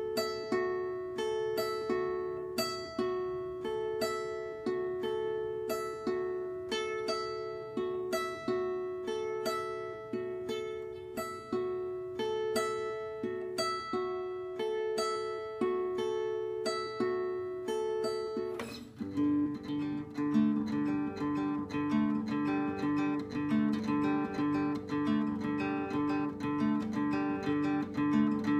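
Solo acoustic guitar playing a repeating figure of single picked notes that alternate between two pitches. About two-thirds of the way in it switches abruptly to a busier, lower rhythmic part of chords.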